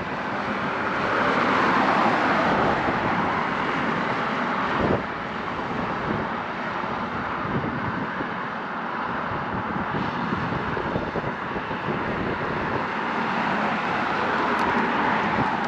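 Steady road noise from traffic on the bridge, a rushing hum that swells a little about two seconds in.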